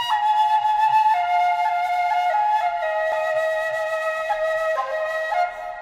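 Opening theme music: a slow melody of held notes on a single wind-like instrument, softening near the end.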